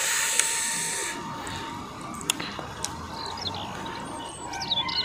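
Close-miked eating of crisp fruit dipped in sambal: a crunchy burst of biting and chewing in the first second, then a few sharp mouth clicks. Birds chirp in the background, with a faint steady tone underneath.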